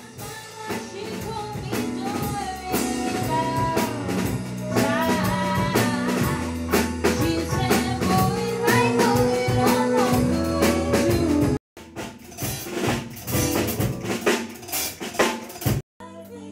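Music with a drum kit, a bass line and a singing voice, broken off abruptly twice by edit cuts near the end.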